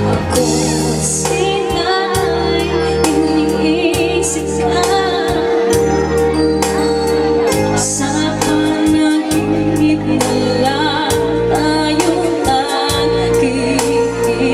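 Music with a female singing voice over organ-like keyboard chords, a steady bass line and light percussion, played loud through a mobile PA sound system.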